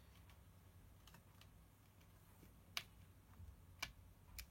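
A few faint, sharp clicks against near silence: a small screwdriver turning the screws of a laptop hard-drive securing bracket. The clearest click comes about three seconds in and two more follow near the end.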